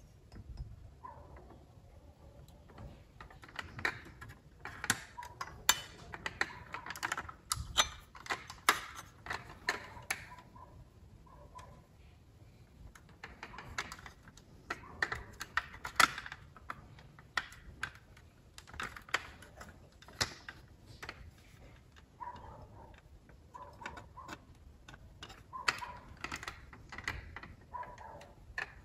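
Irregular small clicks and rattles of a die-cast metal model car being handled, its opening doors, bonnet and rear hatch clicking on their hinges.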